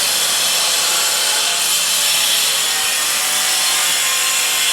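A power tool cutting, with a steady, loud, high-pitched hissing whine.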